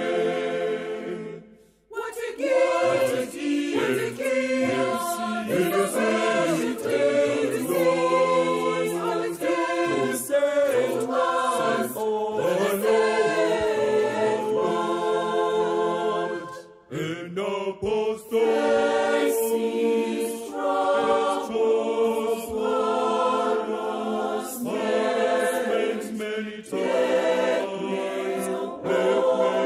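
A choir singing a gospel song in many voices, breaking off briefly twice, once just after the start and once about halfway through.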